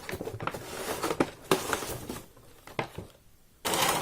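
Cardboard gift box and packaging being handled: a run of light taps and rustles, a quieter stretch, then a loud rustle near the end.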